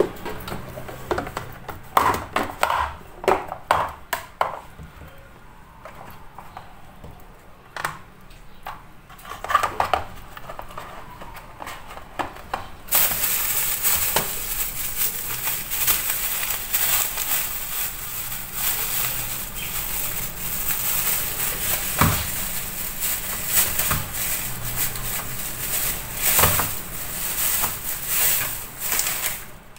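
A plastic lunch box being opened and handled on a stone countertop, with scattered clicks and knocks of the lid and box. About 13 seconds in, a steady, crackling hiss starts and becomes the loudest sound.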